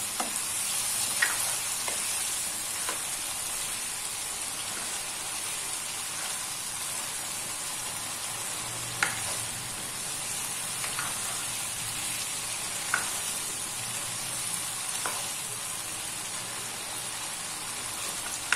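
Chicken karahi sizzling in a wok as it is stirred and turned with a spatula, with a few sharp clicks of the spatula striking the pan. It is the bhunai stage, frying down the masala once it has cooked soft.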